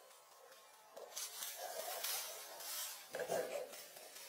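Dry palm leaves rustling and crackling as they are handled and bundled, with a louder crunch about three seconds in.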